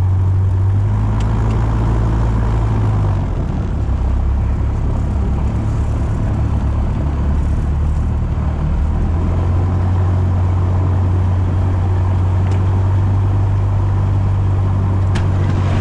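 Piston engine and propeller of a single-engine light airplane running at low power, heard from inside the cabin during the landing roll-out on the runway. The engine note drops slightly about three seconds in, then steadies and holds.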